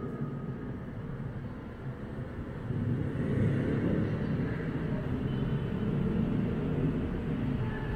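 Steady low rumble of background noise, a little louder from about three seconds in.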